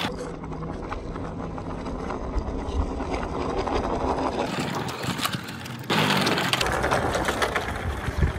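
Radio-controlled wooden model pickup truck driving on concrete: a small electric drive motor whirring while its wheels roll over the rough surface. It gets louder about six seconds in.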